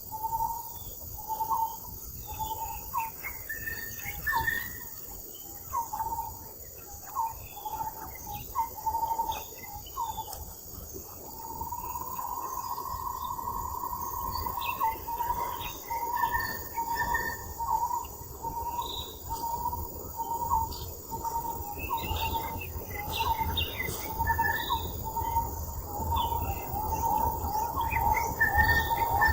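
Outdoor ambience of many short, repeated bird chirps and calls over a continuous insect trill, with a low rumble underneath.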